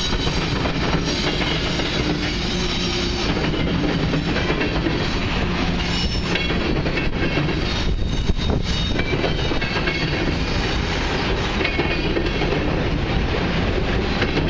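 Freight train of diesel locomotives and covered grain hopper cars passing close by: engine rumble under the steady clatter of steel wheels on the rails. There are a few sharper clanks about six and eight seconds in.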